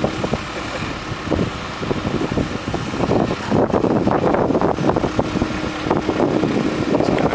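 Caterpillar skid steer loader's diesel engine running, with wind noise on the microphone; it grows louder and rougher about three seconds in.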